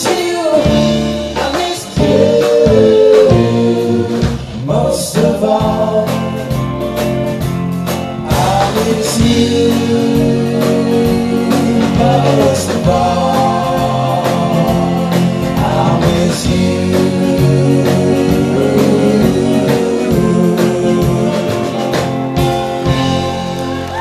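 Live pop-rock band playing a song: a male lead vocal over electric guitars and a drum kit.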